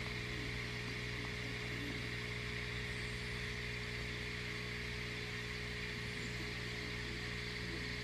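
A steady low hum with several constant tones and an even hiss, unchanging throughout.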